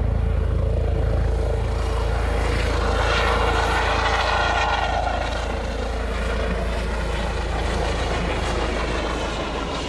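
An engine running steadily over a deep, constant rumble, with a higher engine tone that falls in pitch between about three and five seconds in.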